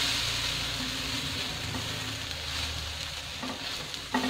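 Semolina batter sandwich sizzling on a hot non-stick tawa just after being flipped, the sizzle slowly fading. About four seconds in, a plastic spatula scrapes and taps on the pan, gathering stray batter.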